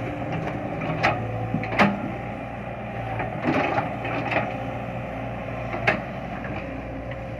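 Caterpillar 312B hydraulic excavator's diesel engine running steadily as it digs dry soil, with several sharp clanks from the bucket and its linkage.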